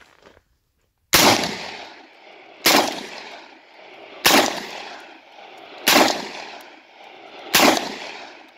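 UTAS XTR-12 12-gauge shotgun firing five shots at an even pace, about one every second and a half, each report ringing out after it.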